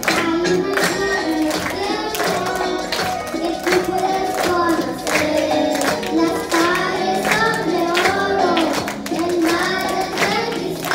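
A young girl sings a Spanish Christian song into a microphone over backing music with a steady beat.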